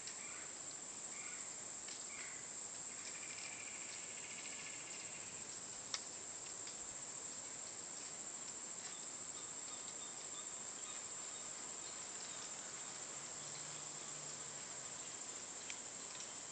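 Faint swamp ambience: a steady, high-pitched drone of insects such as crickets. A short pulsing trill comes about three to five seconds in, and a single sharp click about six seconds in.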